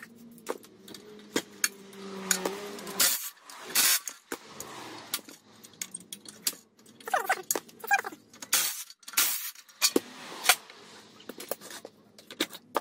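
Metal clinks, knocks and scrapes from hand tools working on the cast aluminium housing of a Keyang NHC-14D cut-off saw as its motor is taken apart to reach the rotor. A steady low whirr runs through the first three seconds, and a metal bar scrapes in short squeaky strokes a little past halfway.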